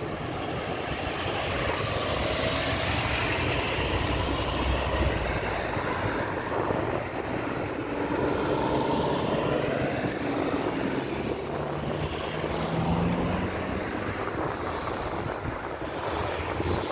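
Road traffic passing steadily: mixed engine noise and tyre rush from cars and trucks. One engine note climbs in pitch about twelve seconds in as a vehicle accelerates.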